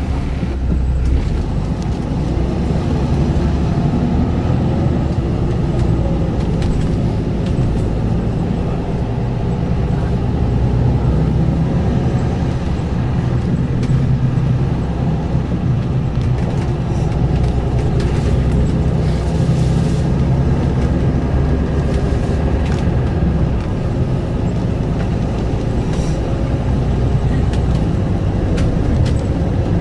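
Yutong ZK6118HGE city bus under way, heard from inside the passenger cabin: steady engine running and road noise, the engine note wavering a little with speed, with a few faint clicks and rattles.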